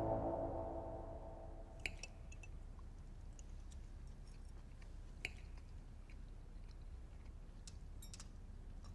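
Soft mouth sounds of someone chewing tortellini, with a few small clicks of cutlery, after background music fades out at the start.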